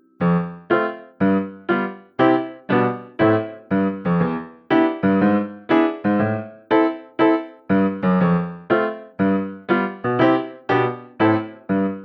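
Background music: piano notes struck at a steady pace of about two a second, each note dying away before the next.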